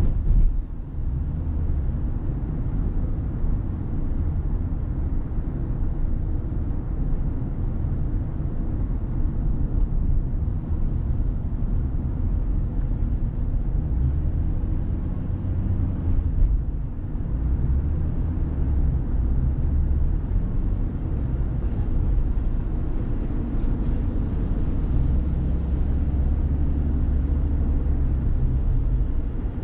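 Car driving along the road: a steady low rumble of engine and tyre noise that swells and eases slightly.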